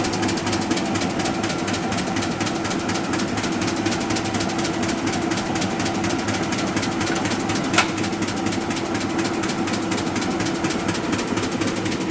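Arter A3-12 rotary surface grinder running, with a steady machine hum and rapid, even clicking from the seam in its flat spindle drive belt as the belt goes around. One sharper click about eight seconds in.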